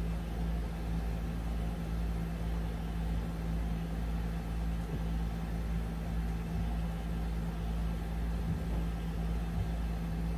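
Steady low mechanical hum with one strong constant tone and a rumble beneath it, unchanging throughout.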